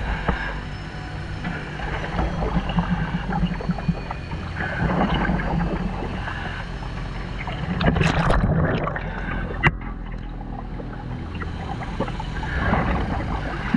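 Water sloshing and bubbling close around a diver at the surface beside a boat hull, in irregular swells over a steady low machine hum, with one sharp knock about ten seconds in.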